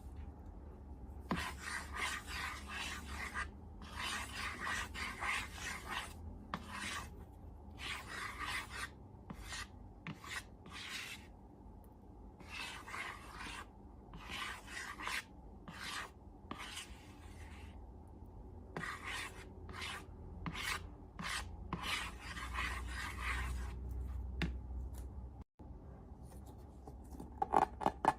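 Repeated rasping, rubbing strokes, each one to two seconds long, with short pauses between them.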